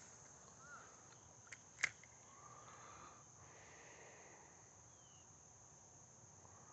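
Near silence with a steady high-pitched drone of crickets, and two faint sharp clicks a little under two seconds in.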